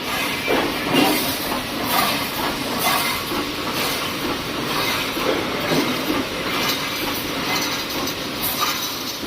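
Automatic welded wire mesh welding machine running, a steady clatter and hiss with a stroke about once a second.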